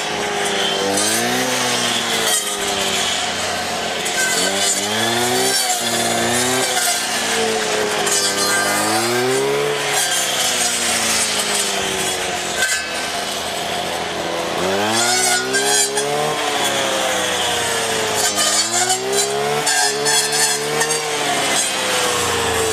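Petrol strimmer engine cutting vegetation, its pitch repeatedly rising and falling every second or two as the throttle is opened and eased off.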